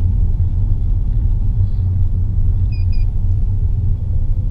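Steady low rumble of a car driving slowly, its engine and tyres heard from inside the cabin. Two short high chirps sound close together a little past the middle.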